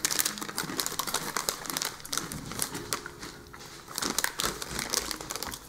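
Crunchy potato-stick snacks (Calbee Jaga Pokkuru) being chewed close to the microphone: a dense run of crisp crunches.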